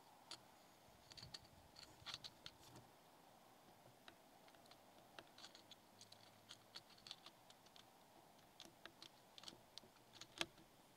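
Faint, irregular light clicks and crinkles of small movements, a few at a time, with one sharper click near the end.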